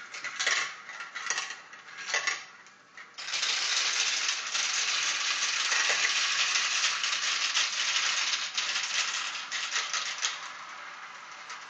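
Marbles clattering down a plastic marble-run tower: a few separate clicks at first, then about three seconds in a dense, continuous rattle of many marbles rolling through the chutes and funnels that lasts about seven seconds and thins out near the end.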